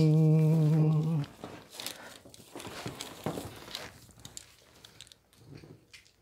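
A person humming a long held note that stops about a second in, followed by soft crinkling and rustling as a bundle of Christmas string lights is handled against artificial tree branches.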